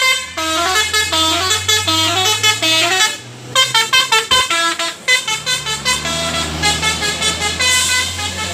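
Basuri V3 telolet horn on a bus playing a rapid tune of short, stepping notes, with a brief break about three seconds in. A steady low engine hum runs underneath.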